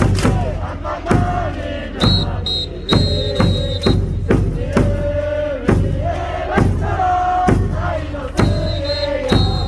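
Baseball crowd chanting a batter's cheer song in unison over amplified stadium music, with a drum beat about twice a second.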